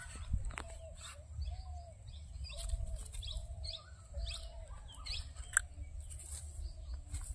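Birds chirping: a run of short, repeated calls, about two a second, over a low rumble.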